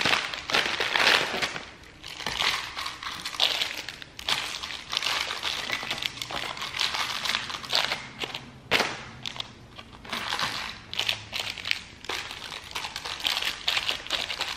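A clear plastic bag and individually wrapped candies crinkling in irregular bursts as the candies are handled and tipped out into small bowls.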